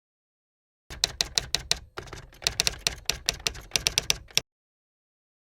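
Rapid sharp clicks, about seven a second, starting about a second in, pausing briefly near two seconds, then running on and stopping suddenly.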